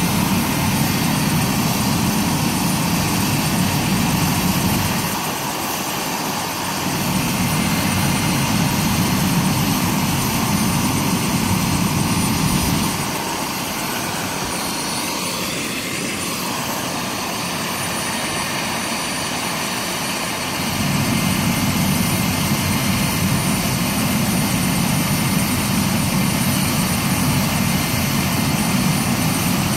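Medical helicopter idling on the ground with its turbine running and rotors turning: a steady engine and rotor noise. The low rumble drops away briefly about five seconds in, and again for several seconds in the middle.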